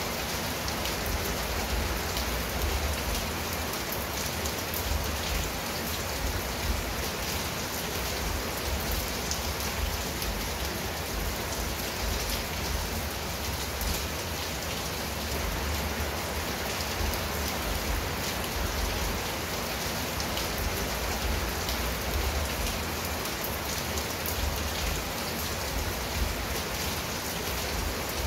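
Steady rain falling on a tiled roof and leafy shrubs, a dense even hiss flecked with countless small drop ticks, with a constant low rumble underneath.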